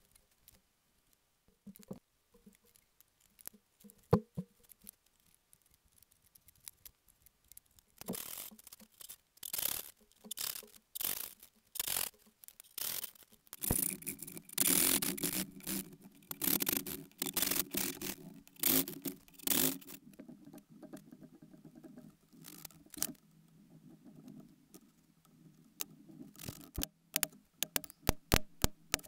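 Hand-cut dovetail work in a softwood board: faint scratching of marking at first, then a backsaw cutting in steady strokes about two a second, and near the end a run of sharp mallet taps driving a chisel.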